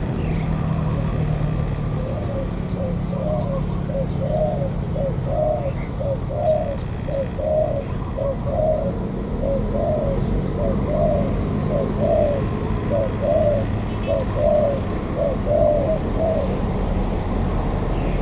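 Spotted dove cooing: a long run of short, evenly spaced coos, about two a second, starting a few seconds in and stopping near the end. A steady low hum runs underneath.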